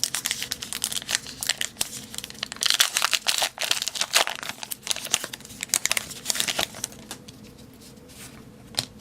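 Wrapper of a Topps Heritage baseball card pack being torn open and crinkled, a dense crackling that dies down after about seven seconds, with a single click near the end.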